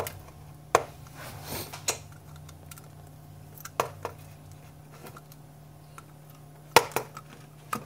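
Plastic sections of a battery-operated aquarium gravel siphon clicking and knocking as they are twisted and pried apart by hand. A few sharp, separate clicks with a short scrape between, the loudest near the end, over a faint steady low hum.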